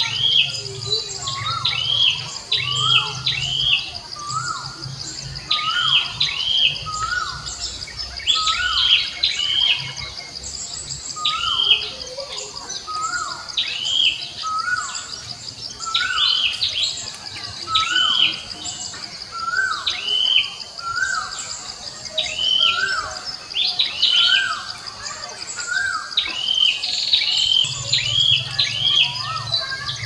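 Birds chirping over and over in a repeating pattern, short hooked notes roughly once a second, over a steady high-pitched insect drone.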